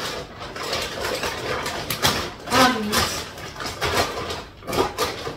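A shopping bag rustling and tins knocking together as someone rummages through a heavy bag of groceries, with a brief vocal sound about halfway through.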